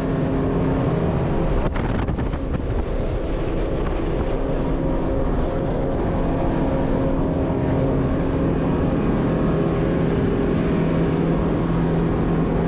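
Motorboat running steadily at speed: a constant engine drone over the rush of water and spray along the hull.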